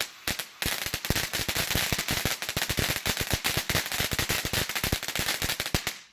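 TNT Southern Heat fountain firework crackling: a dense run of rapid pops over the hiss of its spray of sparks, with a brief lull just after the start, then cutting off near the end.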